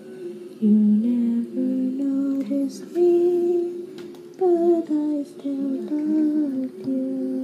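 A girl's voice singing a slow melody in held notes, climbing to its highest notes about halfway through and then stepping back down.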